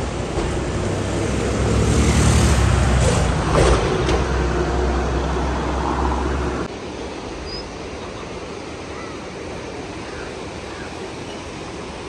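A motor vehicle's engine and road noise, loudest two to four seconds in, over the rush of a fast rocky river; the engine sound cuts off suddenly a little before seven seconds, leaving the steady rush of river water.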